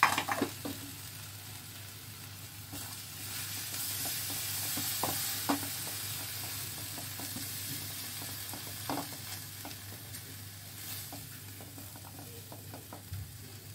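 Onion, tomato and cashew masala paste sizzling in a non-stick frying pan as it is stirred with a silicone spatula, with a few light knocks of the spatula on the pan. The sizzle swells a few seconds in.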